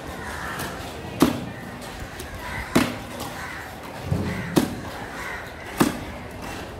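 A large knife chopping through a ladyfish into steaks and striking the wooden chopping block: four sharp chops about one and a half seconds apart.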